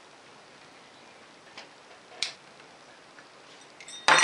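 Hand tools at work on an ATV's belt drive cover screws: two light metallic clicks from the socket wrench and extension, then a sudden loud metallic clatter near the end as the socket and screw are handled.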